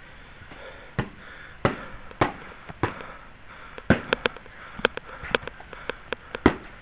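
A string of sharp, irregular whacks from LARP swords hitting during sparring, about a dozen strikes that come in quicker clusters in the second half.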